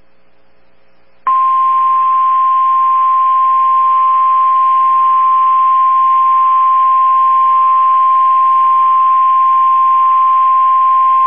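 NOAA Weather Radio 1050 Hz warning alarm tone: one loud, steady tone that starts about a second in and holds for about ten seconds, over a hiss of radio static. It is the alert signal that a severe thunderstorm warning broadcast is about to follow.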